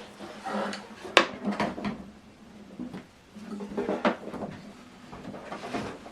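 Handling noises as cables are plugged into the equipment: scattered clicks and knocks with light rustling, the sharpest click about a second in.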